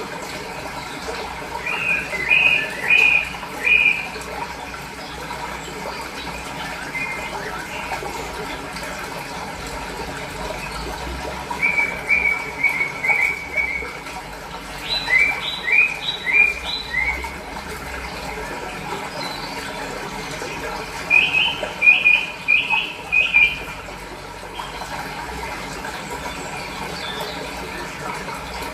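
Steady running water, with a small bird singing short phrases of four or five quick high notes in a row, four times over.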